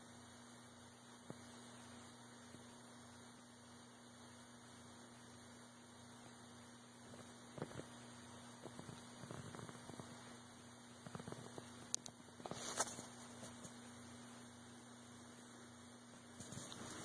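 Faint, steady electrical hum, with soft rustles and a few clicks from the camera being handled in the middle stretch, the sharpest click about twelve seconds in.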